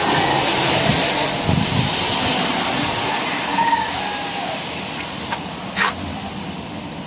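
A road vehicle passing and fading away: a steady hiss of tyres and engine that slowly dies down over several seconds, with a couple of short clicks near the end.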